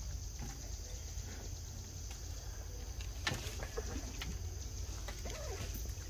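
Faint bird calls, a few short clucking or cooing notes in the second half, over a steady low rumble, with one sharp tap about three seconds in.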